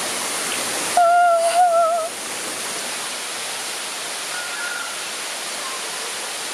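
Mountain stream water rushing, a steady hiss. About a second in, a woman gives one long, high-pitched cry, lasting about a second, at the icy cold of the water she is wading in.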